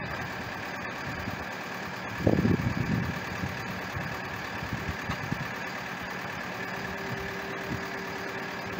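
Engine of the boat-moving rig (hydraulic boat trailer and its tractor) idling steadily, with a brief louder rumble about two seconds in. A faint steady whine joins about two-thirds of the way through.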